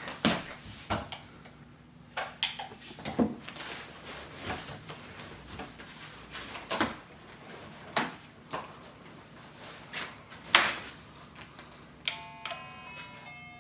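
Scattered knocks and clicks of plastic parts being handled, then near the end a short run of electronic tones from the playpen's music unit, stepping between a few notes.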